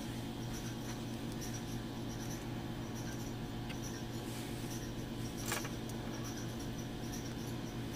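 Light rubbing and handling of a smartphone's plastic back, with one sharp click about five and a half seconds in, over a steady low hum and faint high chirps that come and go.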